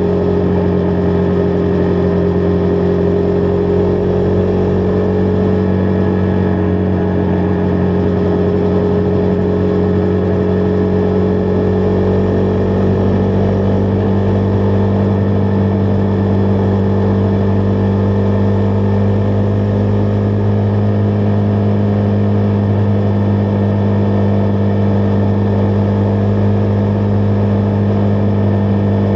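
Husqvarna Vitpilen 401's single-cylinder engine running at a steady cruise, its pitch creeping up a little over the first dozen seconds and then holding.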